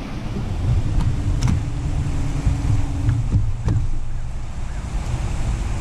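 Wind rumbling on the microphone with water around the boat, broken by a few sharp knocks and a faint steady hum that runs for about two seconds from a second in.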